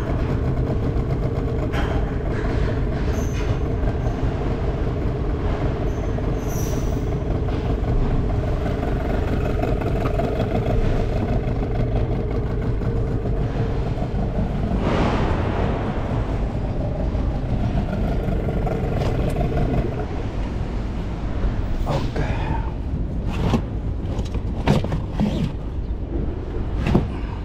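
Steady low engine or machinery rumble with a steady hum that stops about twenty seconds in, followed by a few sharp knocks.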